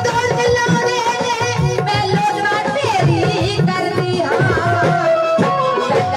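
Live Punjabi folk music from a small stage band: a keyboard melody and singing over a steady hand-drum beat, played through PA speakers.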